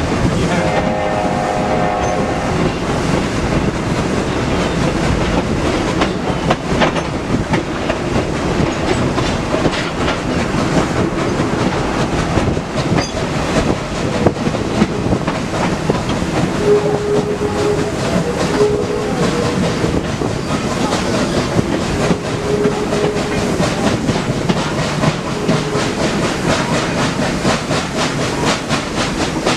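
Pennsylvania Railroad 0-6-0 steam switcher 643 under way, its steam exhaust chuffing and its wheels clicking over rail joints. About a second in, its Reading six-chime whistle sounds a short chord, and a few brief faint tones come later on.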